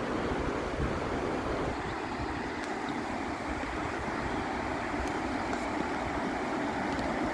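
Steady rushing of river water over rapids and cascades.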